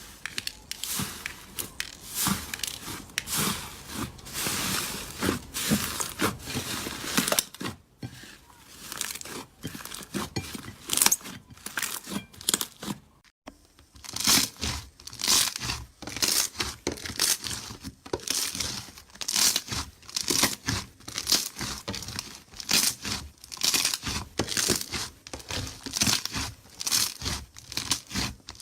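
Hands squeezing, stretching and poking slime, giving a dense run of crackles and pops. It breaks off briefly twice.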